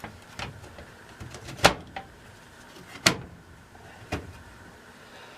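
Four sharp knocks and clicks spaced about a second apart, the second and third the loudest: the access door of a furnace media air cleaner cabinet being shut and its latches snapped over a freshly fitted 6-inch pleated filter.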